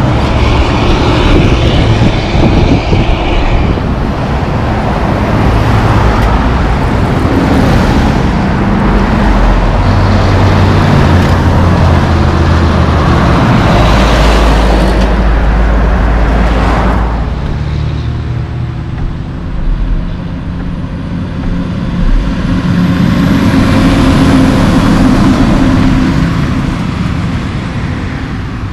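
Loaded logging trucks driving past at close range: heavy diesel engines and tyre noise on the road, loud and steady. A little past halfway it cuts suddenly to quieter highway traffic, with a car and a log truck passing.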